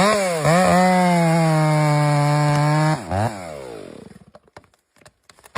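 Chainsaw engine revved up and held at a steady high pitch for about three seconds, then the throttle is released. It gives one short blip and winds down.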